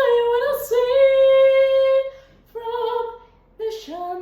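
A woman sings sustained head-voice notes as a vocal exercise, one held tone after another, with a quick breath in the gaps. Near the end a new note slides up from low.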